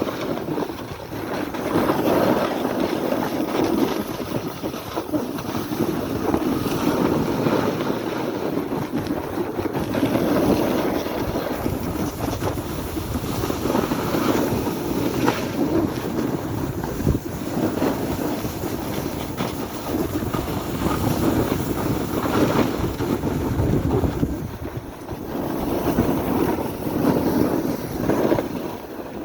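Wind buffeting the microphone: a loud rushing noise that swells and eases every few seconds, with a brief lull a little before the end.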